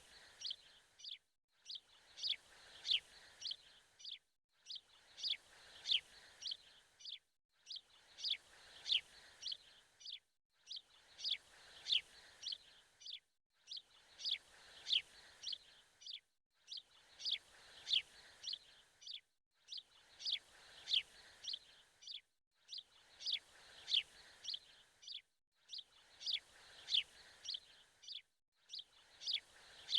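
Bird chirps played as a loop: the same stretch of quick, high chirps repeats about every three seconds, with a brief silent gap between repeats.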